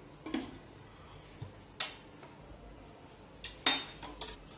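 Steel spoon and metal cookware clinking a few times, short sharp knocks with quiet between them, the loudest about three and a half seconds in.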